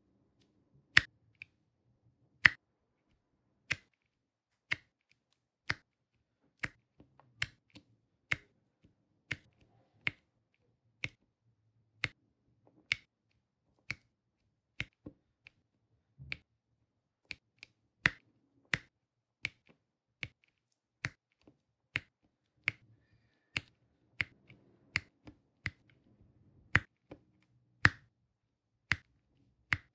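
Diamond painting drill pen tapping round resin drills onto the sticky canvas: sharp separate clicks at roughly one a second, unevenly spaced, some in quick pairs.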